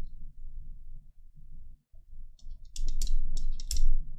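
Stylus of a Gaomon S56K graphics tablet writing on the tablet's plastic surface: a run of short scratchy clicks as the pen strokes and taps, mostly in the second half, over a low rumble.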